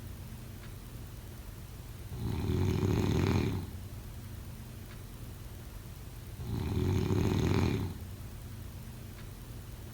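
A person snoring in sleep: two long snores about four seconds apart, each lasting over a second, quieter in between.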